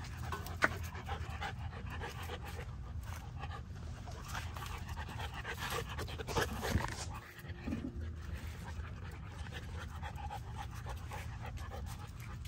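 American bully puppy panting, with scattered light taps and a sharp click about half a second in.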